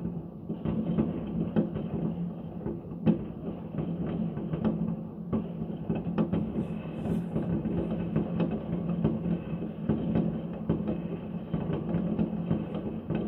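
Many fireworks going off at once, a dense continuous barrage of distant bangs and crackle, with sharper single bangs standing out every second or so.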